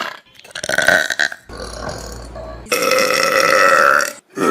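Loud human burps, one clip after another. The last is a long, drawn-out belch of over a second that cuts off sharply.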